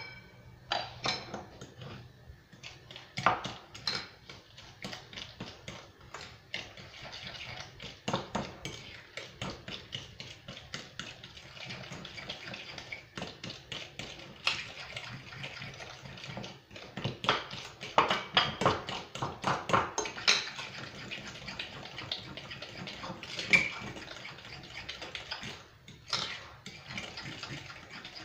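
A fork beating eggs into butter and sugar in a glass mixing bowl: quick, irregular clinks and scrapes of metal on glass, some strokes harder than others.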